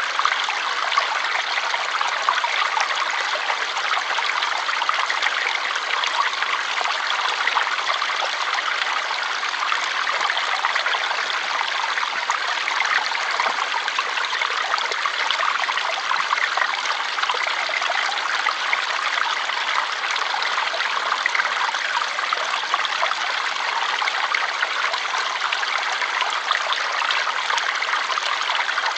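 Water flowing steadily in a stream, an even rushing and trickling that keeps the same level throughout.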